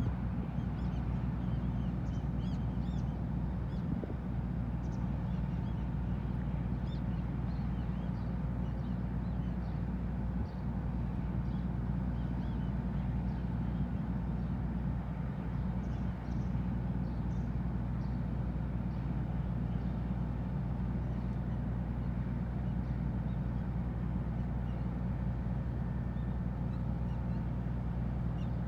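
Car ferry's engines running with a steady low drone, with birds chirping now and then over it.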